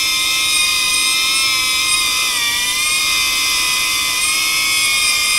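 DJI Avata FPV drone hovering on HQProp 4-blade propellers: a loud, steady whine made of several high tones, the pitch dipping slightly about two and a half seconds in.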